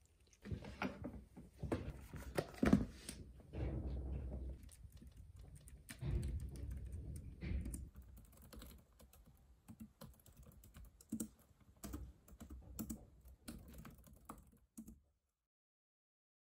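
Typing on a low-profile computer keyboard: a run of uneven key clicks and taps that stops suddenly about fifteen seconds in.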